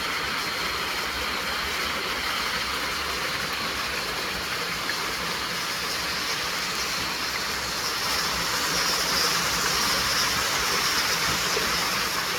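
Running water rushing steadily, with no breaks; it grows a little louder and brighter about eight seconds in.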